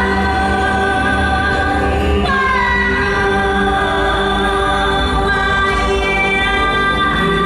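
Show soundtrack music: slow, sustained choral-style vocal chords over a steady bass, with new chords sliding in about two seconds in and near the end.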